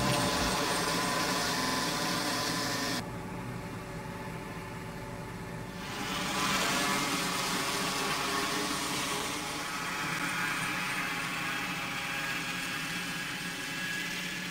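Towing truck's engine and a trailed multi-rotor rotary mower running steadily while cutting grass: a continuous mechanical drone with the whir of the blades, briefly duller about three seconds in.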